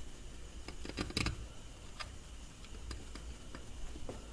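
Small scattered clicks and ticks of a Phillips screwdriver driving the little screws of a Holley carburetor fuel bowl's accelerator pump cover, metal tool on screw heads and the cast bowl, with a brief cluster of clicks about a second in.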